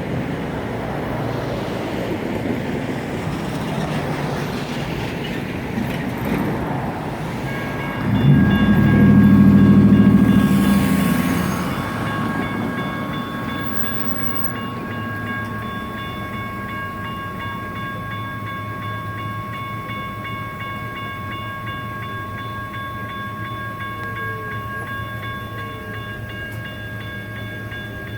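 CAF light rail train approaching with a steady rumble. Its horn sounds loudly for about three seconds, starting about eight seconds in. At about the same time a railroad crossing's General Signals Type 1 electronic bell starts ringing and keeps on.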